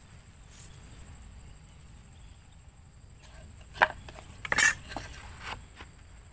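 A sharp click and then a metallic clatter with a short ring as a steel carpenter's square is picked up and handled against wooden planks, followed by a lighter knock of wood on wood.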